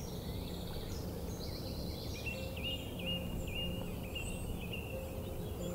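Small birds chirping, with a quick trill about a second and a half in and a run of short repeated chirps through the middle, over a steady low background hum.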